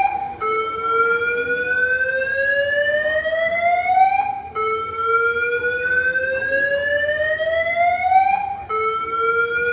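Airport terminal alarm sounding a repeated slow rising whoop: each tone climbs steadily for nearly four seconds, breaks off and starts again low.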